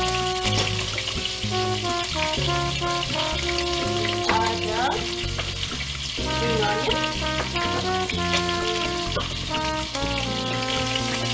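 Ribs sizzling steadily as they fry in olive oil in a pot, with background music of held keyboard-like notes changing every second or so.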